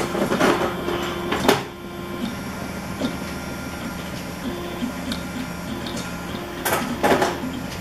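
A home-built belt-driven 3D printer at work: its stepper motors whine in short tones that change as the print head moves, over a steady hum. A few sharper clicks come through, loudest about a second and a half in and again near the end.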